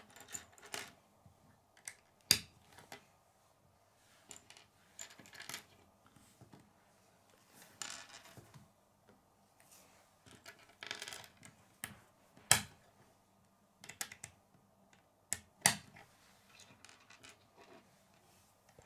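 Plastic K'nex pieces clicking and clattering as rods are snapped into connectors and parts are picked out of a loose pile on a wooden table. There are sharp clicks every few seconds with softer rattling between them.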